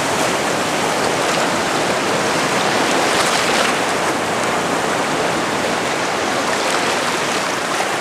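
Shallow sea surf washing in a steady rush, with water splashing around a person's legs as he wades through the small breaking waves.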